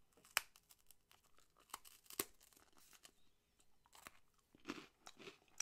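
Crisp puffed rice cracker (negi miso senbei) cracking as it is bitten, then faint, irregular crunches as it is chewed, with one sharper snap about half a second in.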